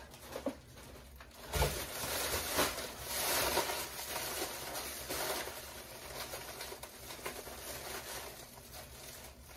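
A plastic shopping bag of instant ramen packets rustling and crinkling as it is pushed down into a cardboard box, with a thump about a second and a half in.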